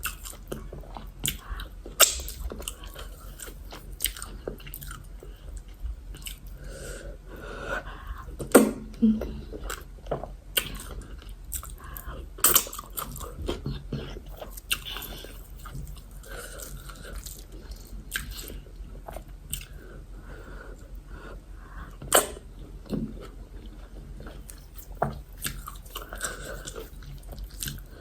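Close-miked chewing and mouth noises of someone eating yam fufu with egusi soup: irregular wet smacks and clicks, with a few louder sharp ones, over a steady low hum.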